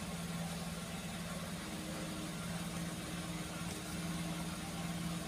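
Steady low electrical hum from workbench equipment, with a constant hiss and a fainter higher hum joining about a second and a half in.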